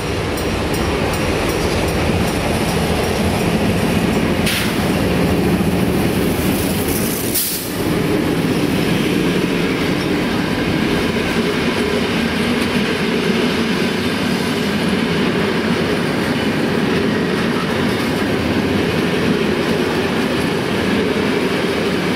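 MLW diesel locomotives passing close by with their engines running. They are followed by a long train of covered freight wagons rolling past, making a steady noise of wheels on rails.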